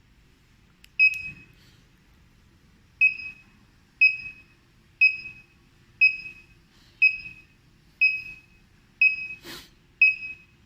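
X10 WiFi GSM alarm control panel beeping: short high beeps about once a second, nine in all, with a longer pause after the first. A sharp click comes about nine and a half seconds in.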